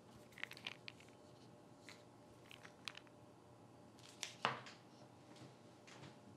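A plastic prescription pill bottle handled on a desktop: scattered light clicks and rattles, then one louder knock about four and a half seconds in.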